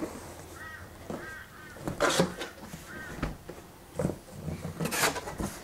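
Flaps of a large cardboard bicycle shipping box being opened and folded back, with two loud cardboard scrapes about two and five seconds in. Short squeaky chirps repeat in between.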